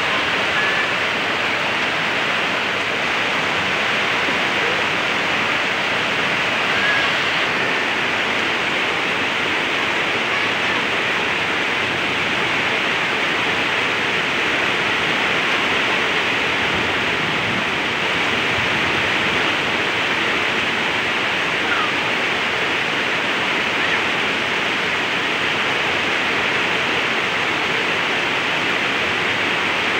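Muddy floodwater pouring over a small falls in a river in spate: a steady, unbroken rushing of water.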